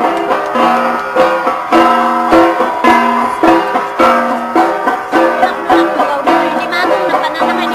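Gangsa ensemble: flat bronze gongs struck in a steady repeating rhythm, several ringing metallic pitches layered over one another.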